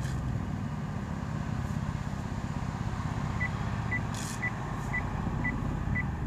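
Maruti Suzuki Baleno hatchback with its engine running low while it reverses slowly. From about three and a half seconds in, its reverse parking sensor sounds short high beeps about twice a second.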